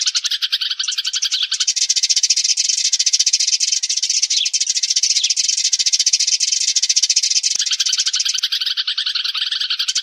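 Sparrows chirping in a dense, continuous, rapid chatter of many overlapping calls, the flock-gathering calls used as a trapping lure. From about two seconds in until near the end, the lowest chirps drop out, then return.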